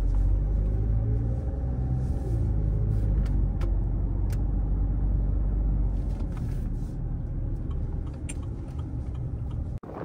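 Steady engine and road drone inside a moving car's cabin, with a few faint clicks; it cuts off abruptly near the end.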